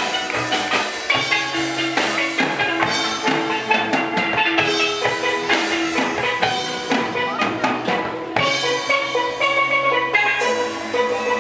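Steel pan music over a drum beat, with held ringing notes and regular strikes.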